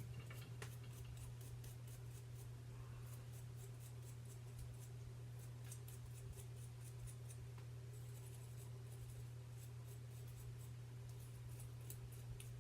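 Faint, rapid scratching strokes as carbon is scrubbed off an AR-15 bolt, over a steady low hum.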